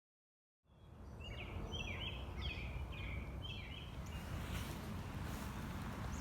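Outdoor ambience with a steady low rumble and a bird chirping in a quick series of short notes. It starts abruptly about half a second in, after dead silence.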